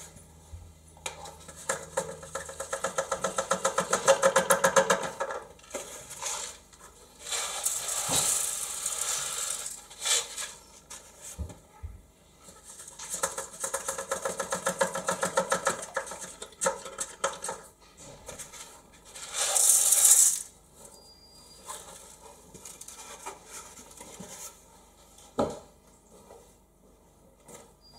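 Coarse dishwasher salt rattling and hissing as it slides through a plastic funnel into a dishwasher's salt reservoir, in several bursts of a few seconds each as the funnel is jiggled, with quiet pauses between.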